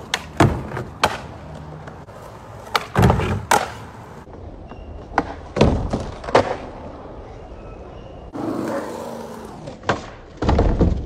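Skateboarding: several sharp cracks of the board's tail popping and of the board slapping down on landings, some followed by a short rumble of the wheels rolling on concrete.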